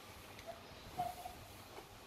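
Quiet room with a light click of wooden toy blocks being handled about a second in, together with a brief faint tone.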